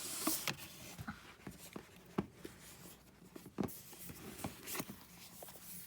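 A watch's packaging being handled and opened by hand: scattered small clicks and taps, with a short rustle of packaging near the start.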